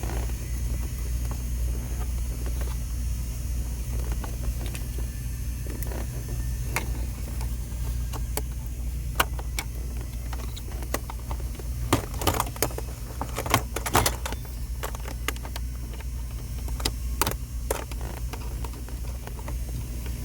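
Scattered sharp clicks, knocks and light rattles of hands and tools working on car parts, thickest a little past the middle, over a steady low hum.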